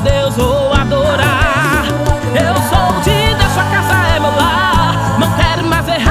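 Forró band music: a wavering lead melody over steady bass and a regular drum beat.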